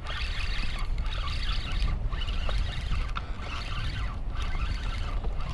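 Spinning reel cranked hard to bring in a hooked fish: a whirring that goes in runs of about a second with short breaks between them, over a low rumble of wind.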